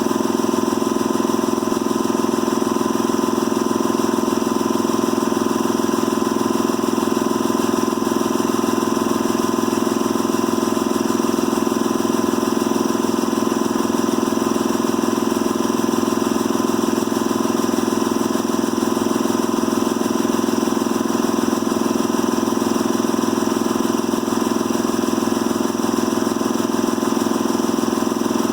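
Husky 80-gallon single-stage, 3-cylinder belt-driven air compressor with a 4.7 hp electric motor running steadily, pumping the tank back up after kicking on at 120 psi. A tinny rattle comes from its loose guard.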